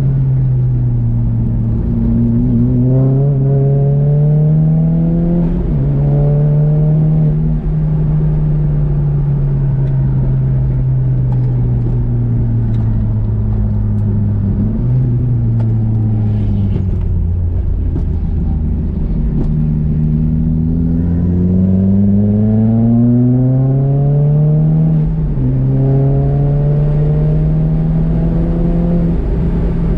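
Nissan Juke's turbocharged four-cylinder engine at full throttle on track, climbing in pitch through the gears. The pitch drops suddenly at each upshift, about four times, and falls away once in the middle as the car slows for a corner.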